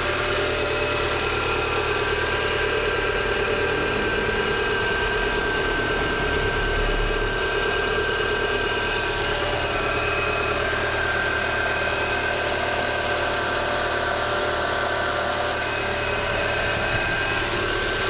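Renault Clio 1.6 16V K4M engine idling steadily on a new accessory belt. The alternator-pulley bearing noise is judged cured.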